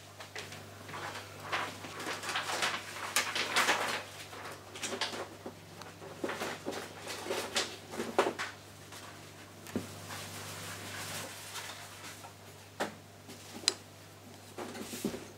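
Close handling noise of a perforated circuit board being fitted and pressed onto a wooden block: irregular scraping, rustling and small clicks of fingers, board and wood. It is busiest in the first half, then thins to a few sharp clicks.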